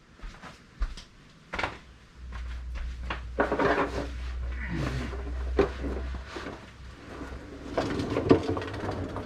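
Scattered knocks and clatter of tools being handled and drawers worked, with a low steady hum from about two seconds in that stops about two seconds before the end.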